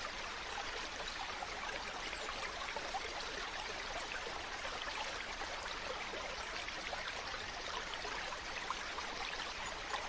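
Mountain stream flowing steadily: a continuous rush of water, dotted with many small splashes and gurgles.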